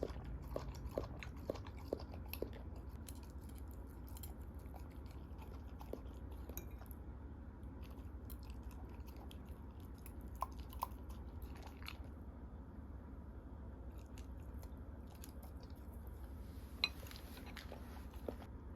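A Jindo dog chewing and crunching food, with scattered crisp clicks of its teeth. The bites come thick in the first few seconds and again later, with one sharper click near the end.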